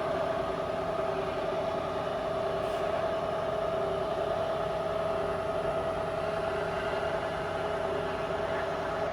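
Bridgeport CNC knee mill running: a steady machine whine from the motor and variable-speed head, holding an even pitch.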